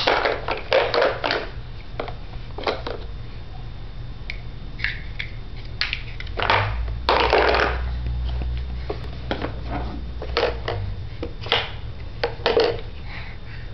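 Hard plastic toy blocks knocking and clattering against a plastic Tonka toy truck as a toddler handles them and drops them in, in irregular clunks with a longer scraping rattle about seven seconds in.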